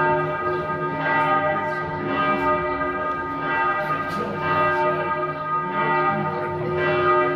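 Church bells ringing, with several bells sounding together. A new stroke comes about once a second and the tones overlap and hang on between strokes.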